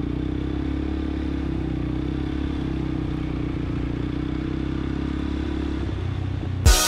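ATV engine running steadily at an even speed, a low drone with no revving. A loud sound cuts in abruptly near the end.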